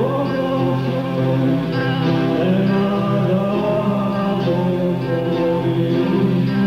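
Live music: a man singing long, wavering notes over a steady droning accompaniment with guitar.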